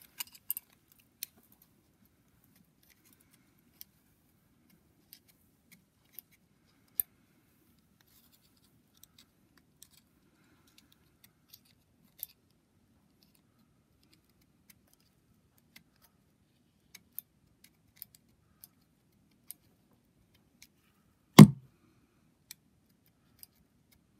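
Thin screwdriver tip scraping and picking softened carbon gunk from around the valves of a BMW N54 cylinder head: sparse, small scratches and ticks of steel on metal. One much louder knock comes near the end.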